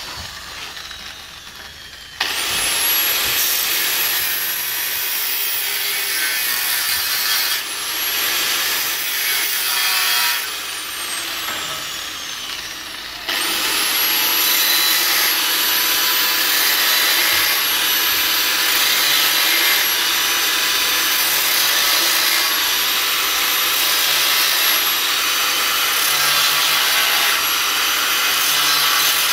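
Electric angle grinder with a cutting disc cutting through a sheet-metal plate: the motor whine rises as it spins up about two seconds in, eases and winds down for a moment near the middle, then spins up again and cuts steadily.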